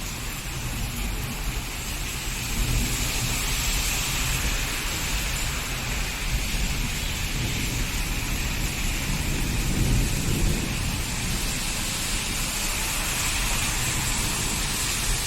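Steady rain falling, with a low rumble underneath that swells briefly about ten seconds in.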